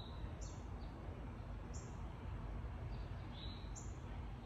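A bird chirping: short high chirps, roughly one a second, over a low steady background hum.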